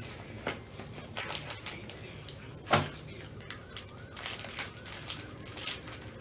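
Hands handling cellophane-wrapped trading card boxes: scattered plastic crinkling and small clicks, with one sharper knock a little under three seconds in.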